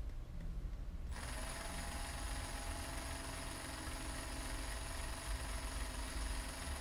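Small electric drill spinning a 3/32-inch bit into a phone's headphone jack, drilling into the broken tip of a 3.5 mm plug lodged inside. A steady motor whine starts about a second in and stops near the end.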